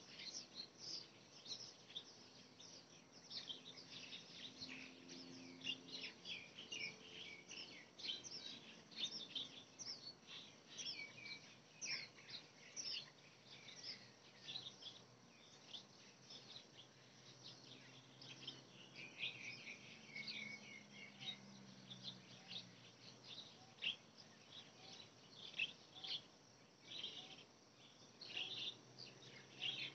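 Many small birds chirping and twittering continuously and faintly, overlapping short calls with no pause. A faint low hum comes and goes underneath.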